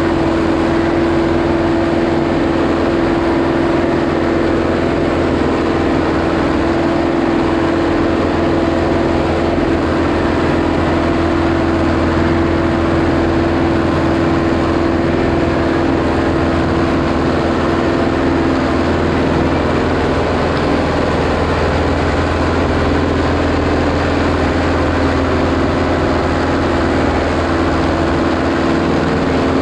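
IH 844 tractor's diesel engine running steadily under load, pulling a loaded 10-tonne trailer uphill. Its note shifts slightly about two-thirds of the way through.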